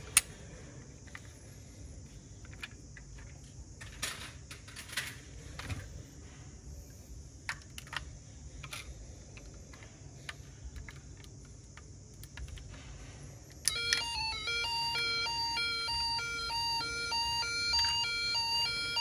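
Clicks and taps of die-cast metal toy cars being handled, with one sharp snap. About fourteen seconds in, a toy ambulance's electronic siren switches on from its built-in speaker, alternating stepped tones that are louder than the handling.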